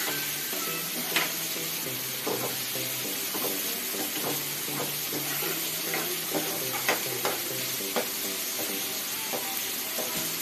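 Chopped onions and tomatoes sizzling in hot mustard oil in a nonstick frying pan. A spatula stirs and scrapes through them, clicking against the pan again and again.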